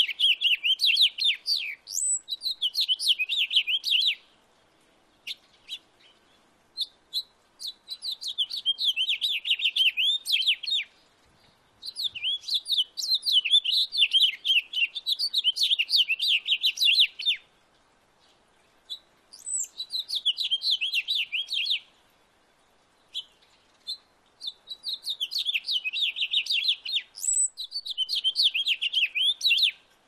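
Male house finch singing: long, rapid warbling songs of a few seconds each, about five of them, with a few single short notes in the pauses between.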